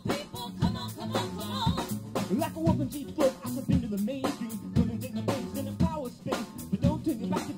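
Song music with a drum kit playing a steady beat of snare and bass drum, about two hits a second, under moving melodic parts.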